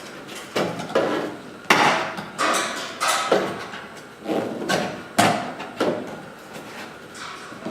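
About a dozen irregular knocks and clanks, some louder than others, each with a short ringing tail.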